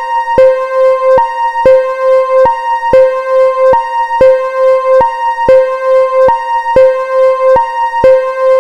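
Fan-made, synthesized Whelen warning siren sounding its hi-lo tone: a low and a high pitch alternate steadily, each held a little under half a second, with a click at every switch.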